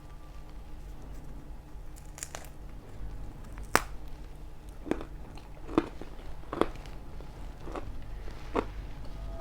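Close-up eating sounds of pizza being bitten and chewed, with sharp crunches of crisp crust roughly once a second from about two seconds in, over a low steady hum.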